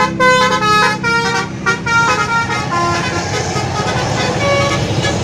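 Multi-tone telolet basuri bus horn playing a tune of short, quickly changing notes. After about three seconds the notes thin out over a steady noisy rumble.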